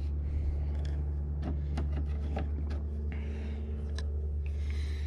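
Faint rubbing and a few light clicks of fingers working lube onto a rubber aircraft door seal, over a steady low hum.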